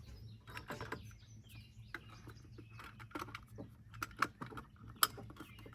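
Scattered clicks and light knocks of plastic and metal as a Humminbird fish finder and its cable plugs are handled and fitted onto a gimbal mount, with a sharper click about five seconds in.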